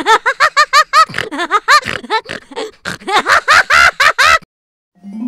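High-pitched cartoon voice laughing in quick, repeated 'ha' syllables, cutting off suddenly after about four seconds. After a short gap, music starts near the end.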